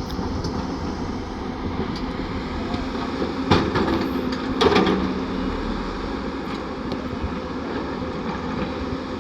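Heavy diesel earthmoving machinery running steadily, with two loud clanks about a second apart near the middle.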